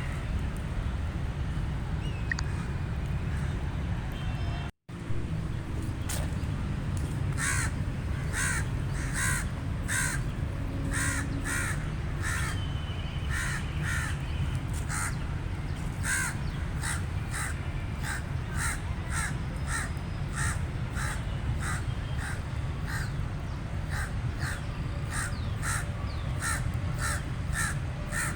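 Crow cawing in a long run of short, quick caws, about two a second, starting some seven seconds in, over a steady low rumble. The sound cuts out briefly near the five-second mark.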